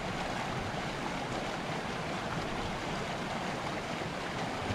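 A mountain creek rushing steadily over rocks.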